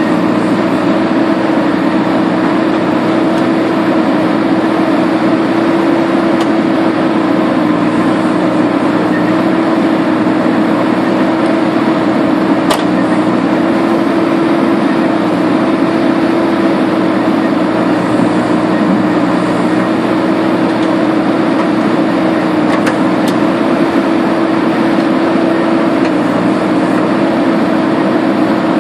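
JCB backhoe loader's diesel engine running steadily while the backhoe arm digs and swings, a loud unbroken drone with a strong steady hum and a couple of faint clicks.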